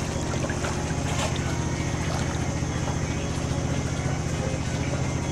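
A motor engine running steadily at an even speed: a low hum with a fast, regular pulsing.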